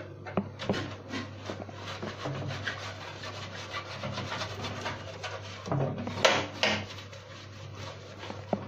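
Silicone pastry brush rubbing oil over a metal baking tray in quick repeated strokes, greasing it so the dough won't stick; a couple of strokes about six seconds in are louder.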